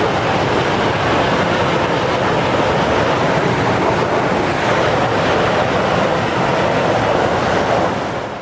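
Steady rushing of a large mass of water pouring from a dam's release gates, loud and unbroken, dipping slightly near the end.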